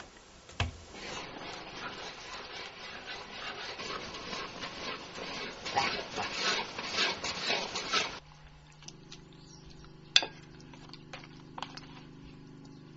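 Cooking at a large steaming wok: a rough hissing and scraping that stops abruptly about eight seconds in. A few light clinks of crockery follow over a low steady hum.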